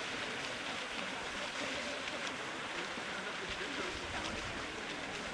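A pack of triathletes swimming and kicking hard in open water, a steady churning splash of many arms and legs, with faint voices behind it.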